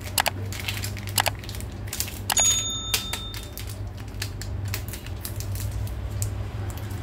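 Scattered clicks and light clatter of kitchen things being handled while instant coffee is made, with one brief ringing clink about two and a half seconds in, over a steady low hum.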